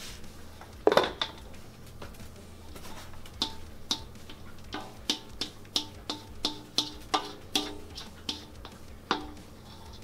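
Background music of short, plucked, percussive notes in a quick rhythm, with one loud clatter about a second in.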